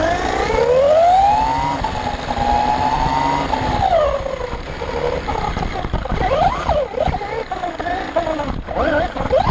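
The Vandal 4WD RC buggy's electric motor whining as it drives. The pitch climbs steeply as it accelerates off the mark, holds, then rises and falls repeatedly with the throttle, over a rough rumble from the running gear.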